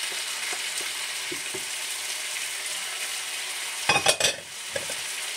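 Broccoli, carrots and peppers sizzling steadily in a frying pan, with a brief clatter a little before four seconds in.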